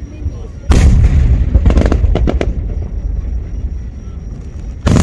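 Aerial firework shells bursting overhead. A loud boom comes about three-quarters of a second in and trails off, followed by a few sharp pops and crackles, then a second loud boom just before the end.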